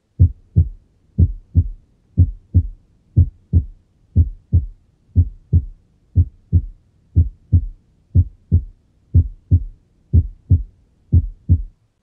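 Heart sounds heard by auscultation: a steady lub-dub, each first heart sound (S1) followed closely by the second (S2), at about one beat a second.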